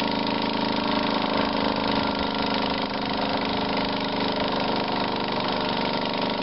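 Handheld electric starter spinning a model-aircraft gasoline engine by its spinner: a steady, even motor whine with the propeller turning over. The engine is not catching.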